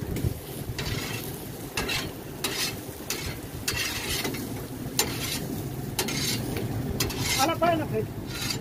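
Long-handled metal spatula scraping and pushing chicken pieces across a charcoal grill's metal grate, in short irregular strokes about once a second, with the meat sizzling over the fire.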